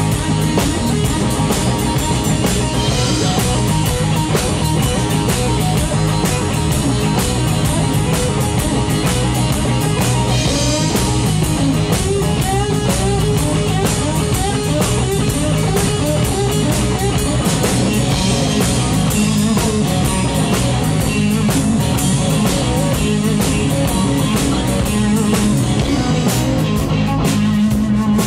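Live rock band playing an instrumental break, with no singing: electric guitar playing lead lines with string bends over bass guitar and a drum kit.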